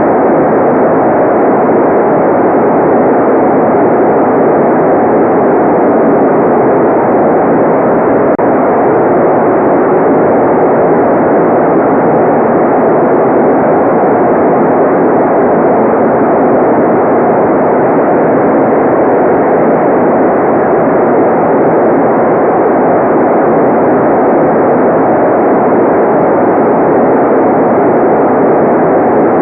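Steady, unchanging white-noise track. It is muffled, a soft even rush with no bright high hiss, and it holds the same level throughout.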